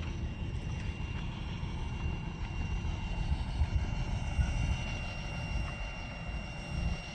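Wind buffeting the microphone: a low, irregular rumble that swells and drops, with a faint steady high tone above it.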